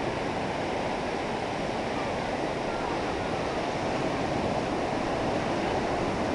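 Ocean surf on the shore: a steady, even rush of water without distinct separate crashes.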